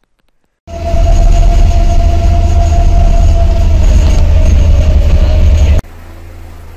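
Loud engine rumble inside a vehicle's passenger cabin, with a steady whine running through it, starting abruptly about a second in. About six seconds in it cuts off suddenly and gives way to a quieter steady drone from a helicopter landing outside, heard through a window.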